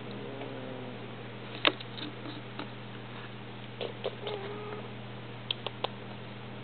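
Persian and Persian–Munchkin cats mating: a couple of short, low cat calls, a sharp tap about a second and a half in, and a quick run of three clicks near the end, over a steady low hum.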